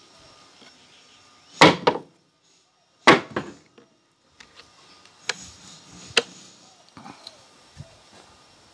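Two loud wooden knocks about a second and a half apart, then a few lighter clicks and taps, as wooden blocks are lifted out of a Miller & Kreisel V-75 subwoofer and its hinged top grille is handled and shut onto the cabinet.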